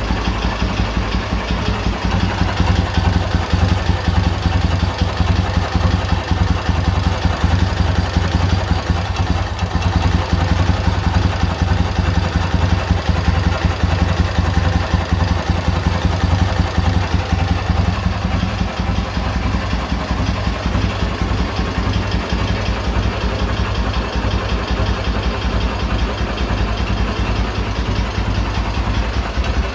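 K-750 motorcycle's 750 cc side-valve flat-twin engine idling steadily. It has freshly replaced crankshaft timing gears, and the owner finds the earlier knock seemingly gone at idle.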